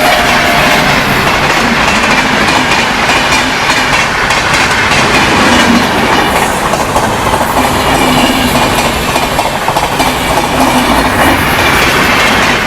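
Express train running through the station at speed without stopping: a loud, steady rush of wheels on rail with rapid clickety-clack over the joints. The tail of its horn falls slightly in pitch and fades in the first moment.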